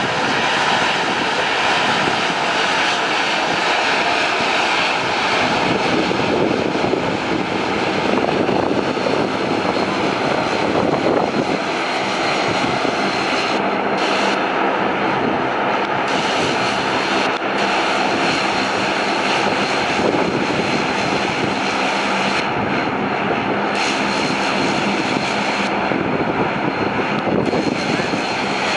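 Bombardier Q400's twin Pratt & Whitney PW150A turboprops running as it rolls out and taxis: a steady propeller drone with a high whine over it. The highest part of the sound drops away briefly a few times.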